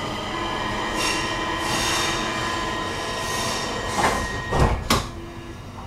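Stockholm metro train heard from inside the car as it brakes to a stop at a station: steady running noise with a high whine and squeal from the wheels and brakes, then a few heavy clunks about four to five seconds in as it comes to a halt, after which it settles to a lower hum.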